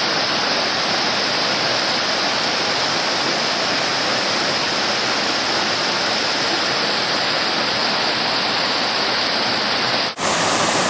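Mountain stream rushing over rocks and small waterfalls, a steady loud wash of water. It cuts out for a moment about ten seconds in and comes straight back.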